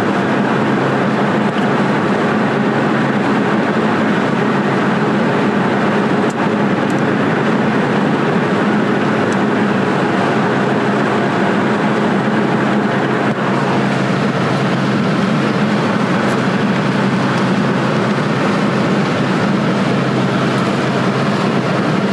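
Steady road noise from a car cruising on the freeway, heard from inside the cabin: an even tyre and wind rush over a low, constant engine drone.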